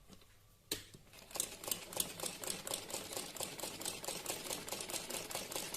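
Sewing machine stitching at a steady speed, a rapid, even clatter of the needle starting about a second in after a single click.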